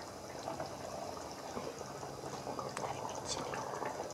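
Chicken curry gravy simmering in an open pan: a soft, steady bubbling with small scattered pops, the gravy left uncovered to boil down and thicken.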